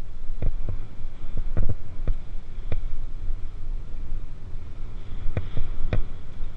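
Wind buffeting the microphone of a GoPro mounted on a mountain bike, with a steady low rumble of tyres on dirt, as the bike rides over the rollers of a dirt pump track. About ten irregular sharp clacks of the bike rattling over the bumps break through, in clusters near the start and again near the end.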